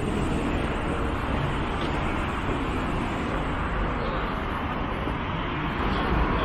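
Steady road traffic noise at a bus and taxi kerbside: engines of cars and buses running, with a low rumble.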